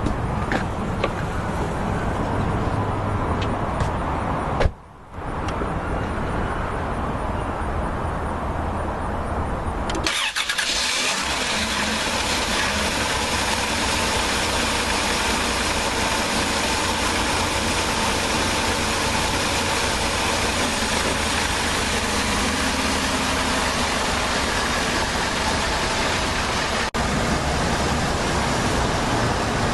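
2005 Dodge Caravan's engine running steadily after being cranked, with a brief dropout about five seconds in. From about ten seconds in, the sound turns brighter and hissier.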